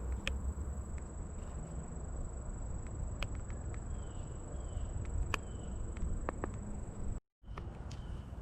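Outdoor ambience: a low rumble of wind on the microphone, scattered clicks and taps, a steady high-pitched tone and a few faint short chirps. The sound cuts out completely for a moment about seven seconds in.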